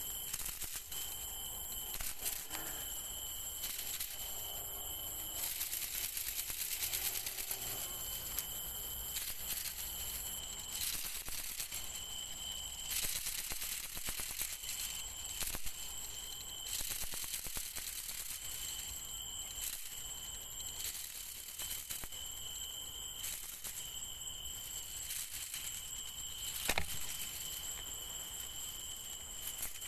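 Night insects trilling steadily at two high pitches, breaking off now and then, over rustling of grass and brush and small handling clicks. A single sharp click comes near the end.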